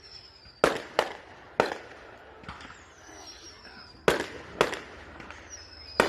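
Aerial firework shells bursting with six sharp bangs: three in quick succession early on, two more about four seconds in, and one near the end. Thin whistles falling in pitch lead into the bursts.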